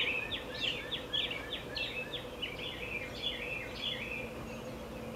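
Birds chirping outdoors in a rapid run of short falling notes, about four a second, over steady background noise and a faint steady hum.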